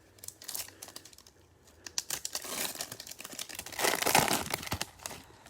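A foil trading-card pack wrapper crinkling and tearing as it is opened, in several short crackly spells, the loudest about four seconds in.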